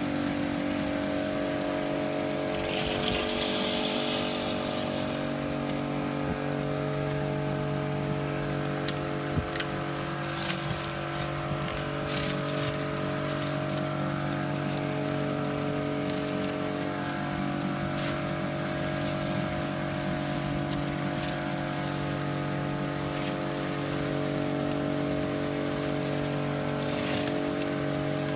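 Kärcher K4 electric pressure washer running steadily, its motor and pump giving a constant hum under the hiss of the water jet. The spray hiss swells for about two seconds a few seconds in, and again briefly near the middle and near the end.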